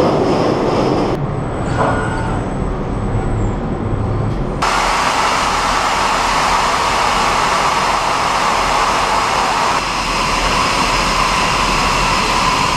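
Steady, loud noise of metal welding in a workshop, in several edited shots that change abruptly about a second in and again about four and a half seconds in.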